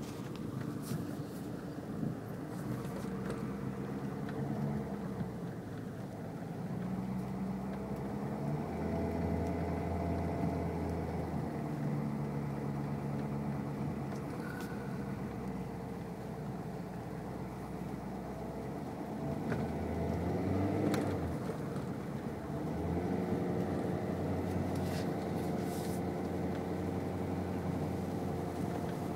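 Car engine and tyre noise heard from inside the cabin while driving slowly on a snow-covered road; the engine's hum shifts in pitch several times, with a few faint clicks.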